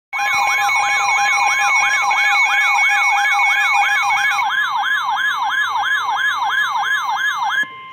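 Electronic emergency-alert siren sweeping up and down nearly three times a second over steady alert tones. Two of the steady tones drop out about halfway through. Near the end the sweeping stops and a single steady tone holds briefly.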